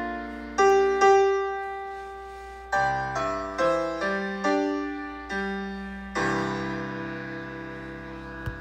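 Piano playing a hymn in chords: a run of struck notes that each die away, then a final chord about six seconds in that is held and fades.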